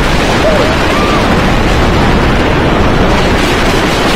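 Wind noise on the microphone over the steady rumble of the Lightning Racer wooden coaster's train running at speed on its wooden track.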